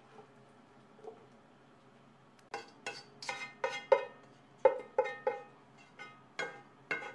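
Spatula knocking and scraping against a metal wok as the stir-fry is pushed out onto a plate. Two faint clinks come first, then from about two and a half seconds in a quick, uneven run of about a dozen sharp ringing clinks.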